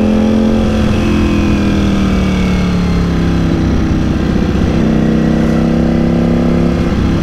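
Ducati Panigale V4 S's 1103 cc V4 engine running in second gear, heard from the rider's seat. Its pitch eases down over the first few seconds as the bike slows, then holds steady, with wind noise underneath.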